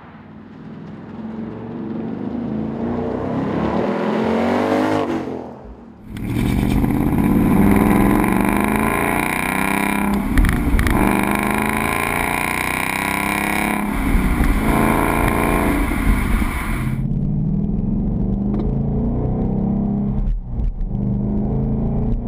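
2015-2017 Mustang GT 5.0 V8 through a Roush stainless axle-back exhaust. The car first accelerates away, rising in pitch. It is then heard close at the tailpipe, louder, in rising pulls with short dips between them. Near the end it is quieter and duller, heard from inside the cabin.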